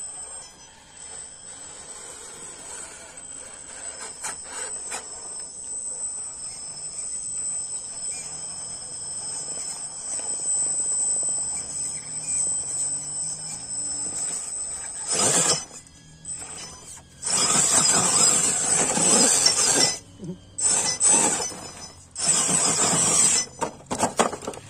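Scale RC crawler truck's electric drive giving a steady high whine as it crawls through a muddy puddle. About fifteen seconds in, loud rough noisy bursts come and go as the truck scrambles up the rock bank.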